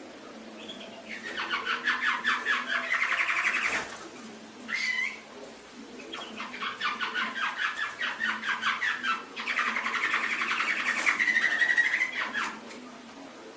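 Domestic canary singing: long phrases of fast rolling trills, each two to three seconds long, broken by short pauses and single sliding upswept notes.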